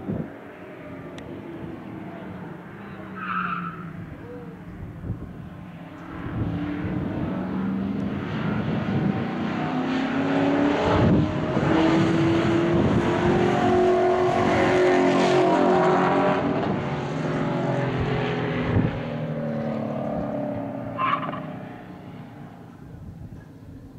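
A classic muscle car running hard under full throttle, its engine rising in pitch and growing louder as it approaches, loudest as it passes, then fading away.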